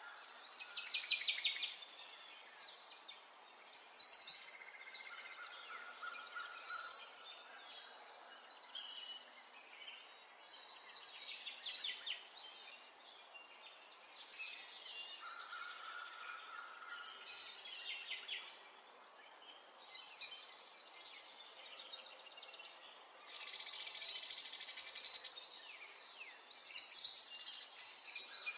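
Small birds chirping and trilling: high-pitched phrases of rapid trills come every few seconds, with short pauses between them.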